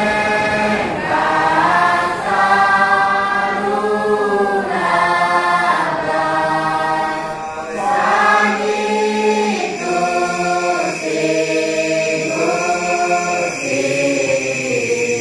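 Choral singing: several voices holding sustained chords that shift together every second or so, over a steady high tone.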